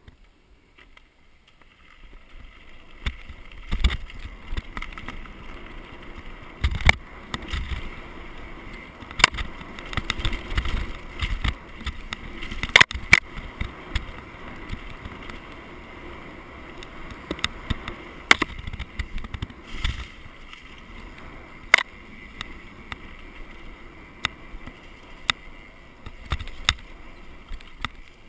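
Downhill mountain bike descending a dirt forest trail at speed: a steady rush of tyres on dirt and wind, broken by frequent sharp knocks and clatters as the bike hits bumps. Fainter at first, it picks up about two seconds in.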